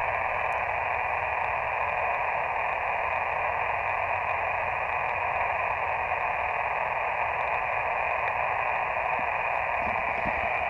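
Steady hiss of an Elecraft KX2 ham radio transceiver's receiver on an open band, with no station coming through. The operator is listening for the next caller.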